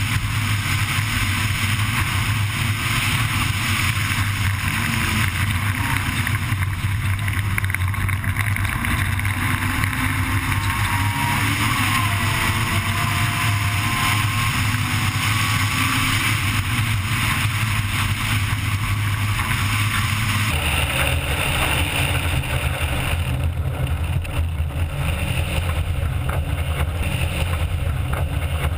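Honda Civic Type R rally car's four-cylinder engine running hard at speed on a gravel stage, with steady road and gravel noise. About twenty seconds in the sound changes abruptly, now heard from outside the car beside the body.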